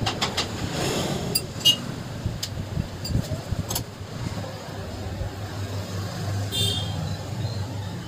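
Steady low hum of motor traffic, with a few short light clicks and knocks in the first half as a hand works the engine's magneto flywheel.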